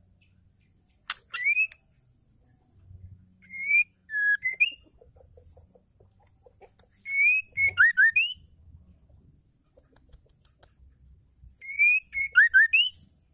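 Female white-rumped shama (murai batu betina) calling: four short phrases of quick rising whistled notes, a few seconds apart.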